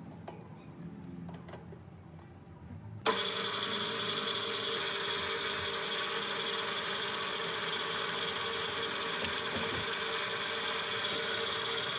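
A few light clicks of a chuck key tightening a three-jaw lathe chuck, then about three seconds in a small benchtop metal lathe switches on and runs at a steady speed with a constant whine while turning a metal tube.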